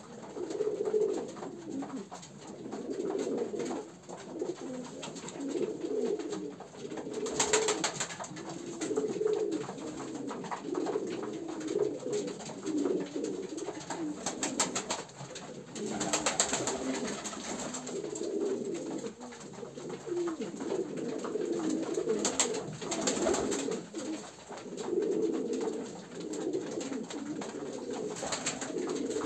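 Many domestic pigeons cooing over one another without a break in a small loft. Several short flurries of wing-flapping are heard a few times, the last near the end.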